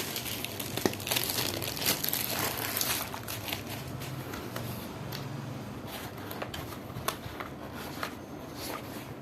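Packaging crinkling and rustling as a multimeter is unboxed. It is busiest for the first three seconds, then thins to scattered crackles and clicks.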